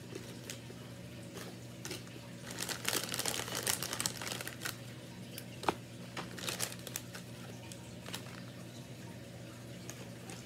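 Cellophane candy packaging crinkling in bursts as powder-candy carrots are handled and put into an Easter basket, with one sharp click about halfway through. A steady low hum runs underneath.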